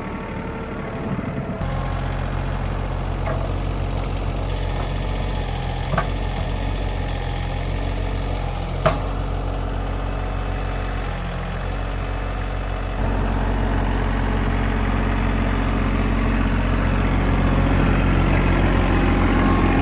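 Tractor engine running steadily under the work of lifting logs. It picks up about two seconds in and again about two-thirds of the way through, with a couple of sharp knocks in between.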